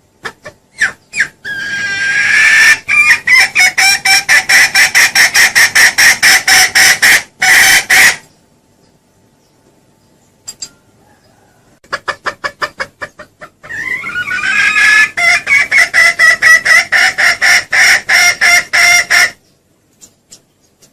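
Junglefowl calling in two long runs of rapid, evenly spaced clucks, each run about seven seconds long and opening with a rising note, with a few seconds' pause between them: a lure call for attracting wild junglefowl.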